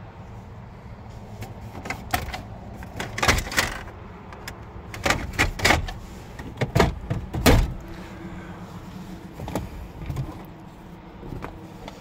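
A series of sharp plastic clicks and knocks from hands handling the pickup cab's dashboard and console trim, bunched mostly in the first two-thirds. A steady low rumble runs underneath.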